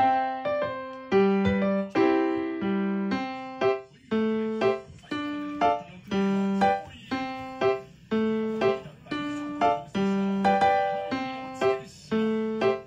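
Background music: a light piano tune with struck, fading notes about twice a second in a steady rhythm.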